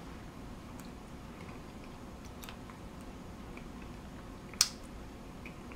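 Quiet mouth sounds of someone tasting hot sauce: faint lip smacks and tongue clicks, with one sharp smack about three-quarters of the way through, over a steady low room hum.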